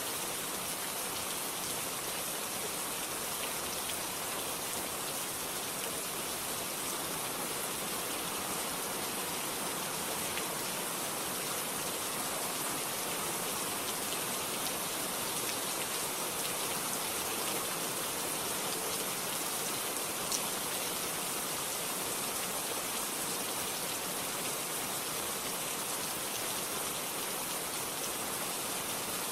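Steady rain falling and pattering on a surface, with no thunder. Now and then a single drop gives a sharper tick, one a little louder about two-thirds of the way through.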